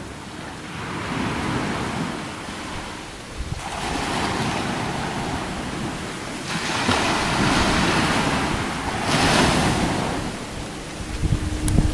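Wind buffeting the microphone: a rushing noise that swells and drops in gusts, stepping up sharply a few times.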